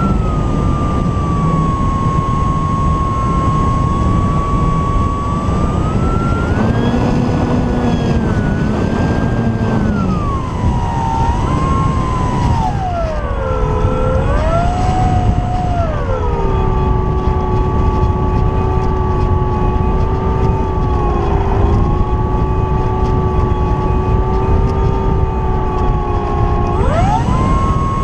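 Brushless electric motor and propeller of an Apprentice S 15e RC trainer plane whining in flight over heavy wind rush on the microphone. The whine's pitch follows the throttle: it drops low about halfway through and climbs sharply again near the end.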